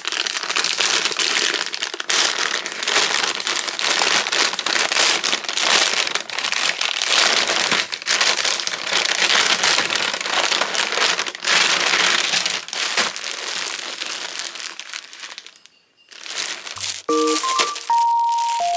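Steady crinkling and crumpling of packaging being handled, fading out near the end as light background music with a simple melody comes in.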